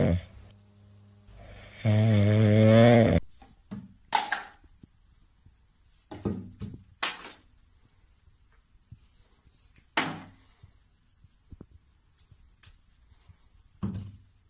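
A sleeping cat snoring loudly, one snore tailing off at the start and a longer one about two seconds in. Then scattered light knocks and clatters of plastic toiletry bottles as a cat paws at them and tips one over.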